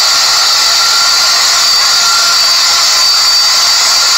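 Philips SpeedPro Max Aqua cordless stick vacuum running steadily, a high motor whine over a rush of air, as it vacuums a tiled floor.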